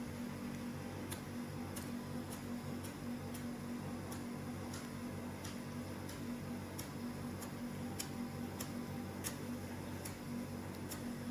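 Light, sharp ticks about every half second to second over a steady low hum.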